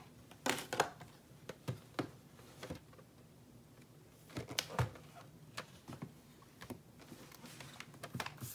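Handling of DVD packaging: scattered light plastic clicks and rustles as a multi-disc DVD case is slid out of its cardboard box and opened, with a cluster of clicks about four to five seconds in.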